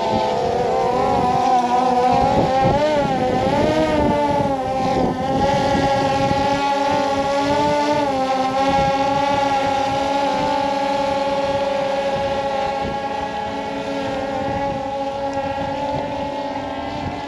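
DJI quadcopter drone's propellers humming in flight, a loud multi-toned whine that wavers up and down in pitch for the first several seconds, then holds steady and slowly fades. Wind is buffeting the microphone.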